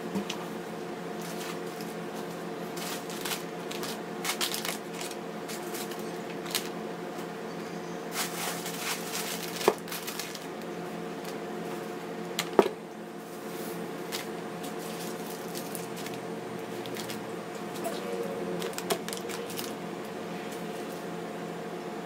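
Grocery items in plastic packaging being handled and set down on a table: crinkling and rustling with scattered light clicks, and two sharp knocks, one about halfway through and another a few seconds later, over a steady hum.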